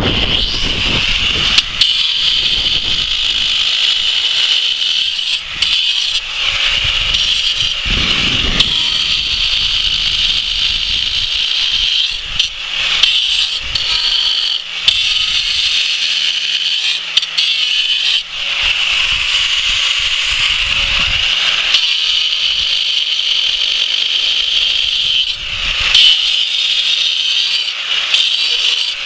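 Angle grinder with a diamond blade cutting down into a stone block: a steady high-pitched whine with gritty rattling as the blade bites, easing off briefly a few times.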